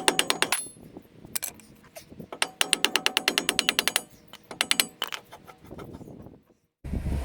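Hand ratchet wrench clicking in quick runs of about ten clicks a second, in several bursts with pauses between. Near the end, after a brief gap, a different low-pitched noise begins.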